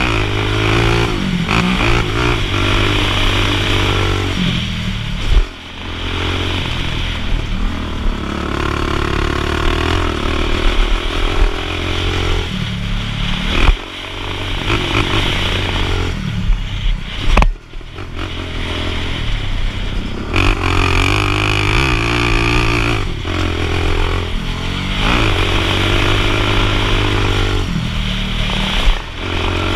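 Sport quad (ATV) engine revving hard as it is ridden round a dirt motocross track, its pitch rising and falling with the throttle. The throttle is chopped briefly three times, about 5, 14 and 17 seconds in, before it revs up again.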